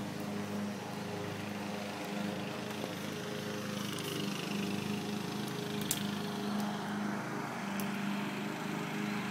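A small motor running with a steady, pitched hum that swells and dips a little, with a few faint clicks.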